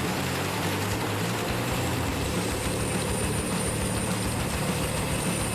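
Wood chipper running steadily: an engine's low hum under a constant rushing noise, with a faint high whine.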